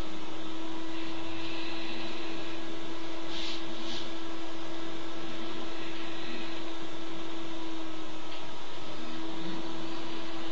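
Steady hiss with a constant low hum tone underneath, unchanging throughout, with a couple of faint soft ticks near the middle.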